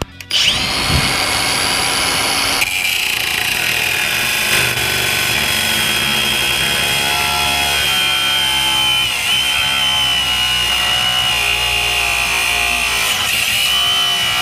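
Handheld power tool running continuously while cutting the truck's metal, with a high steady whine that sags a little under load about nine seconds in. It starts sharply and cuts off near the end.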